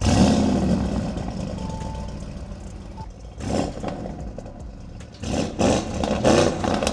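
Audi RSQ8's twin-turbo V8 revved at standstill through catless downpipes with the particulate filter deleted: a loud burst at the start that slowly dies down, then further short blips about three and a half and five to six and a half seconds in. The standstill rev limiter is still active because the engine software has not yet been changed.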